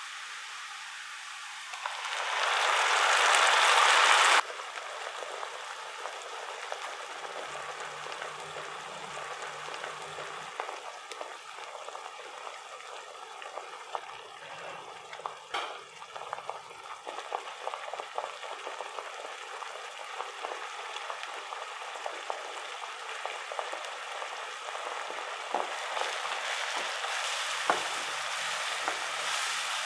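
Onions and tomato masala sizzling in hot oil in a non-stick kadai. About two seconds in, the sizzle surges loudly for a couple of seconds, as when tomato paste is poured into the hot oil, then cuts off abruptly. Near the end the wooden spatula scrapes and stirs through the masala more busily.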